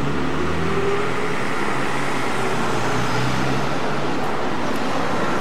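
Road traffic on a town street: a steady wash of passing cars, with an engine's low hum during the first few seconds.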